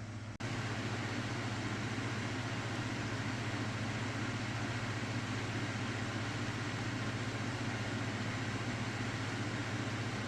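Steady vehicle running noise, a low hum under an even hiss, which starts abruptly about half a second in and holds unchanged.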